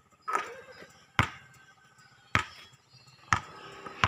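Five sharp knocks about a second apart, each one loud and short.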